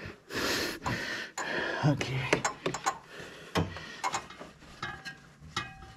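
Scattered metal clicks and knocks with rubbing and rustling as a serpentine belt is worked onto the engine's pulleys, a long bar levering the belt tensioner back.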